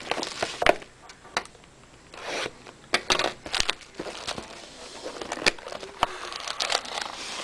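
A sealed box of hockey cards being sliced open and its packaging handled: scattered sharp clicks and taps with short crinkling rustles.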